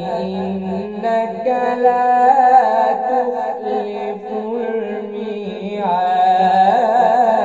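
A male voice in Quran recitation (tajwid), chanted in long melodic phrases with held, ornamented notes. The voice eases off about five seconds in, then glides up and swells again.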